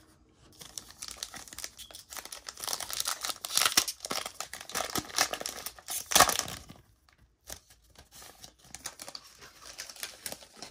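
Wrapper of an NBA Hoops trading-card pack crinkled and torn open, loudest about six seconds in, then lighter rustling and clicking as the cards inside are handled.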